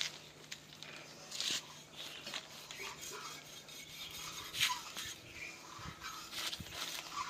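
Knife slicing and scraping through a skin-on goat carcass as it is butchered: a few short, scattered cutting strokes, the loudest a little past halfway.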